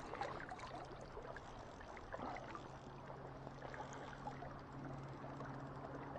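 Small waves lapping and splashing at the lake shore, with a faint steady low hum underneath.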